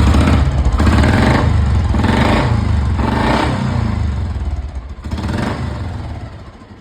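Royal Enfield Electra single-cylinder motorcycle engine running and revved in about four throttle blips, then dying down near the end. Its cam/valve gear has just been re-set to a 0/0 setting to cure a tik-tik noise, and it now runs without the ticking.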